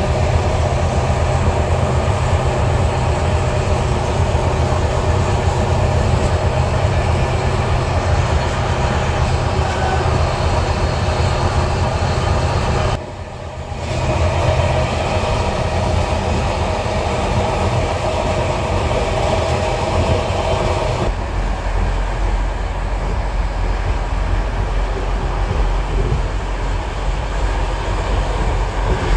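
SU42 diesel locomotive's engine running steadily under power, heard close up from the coupled coach, mixed with rail noise. The sound dips for a moment about 13 seconds in, and about 21 seconds in it turns to the lower, duller rumble of the moving train heard inside the passenger coach.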